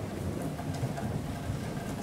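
Steady rain on a metal roof: a constant hiss with scattered drop ticks and a low rumble underneath.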